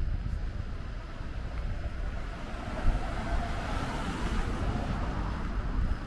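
Wind buffeting the microphone with a low rumble, and a passing car whose tyre hiss swells to a peak about four seconds in and then fades.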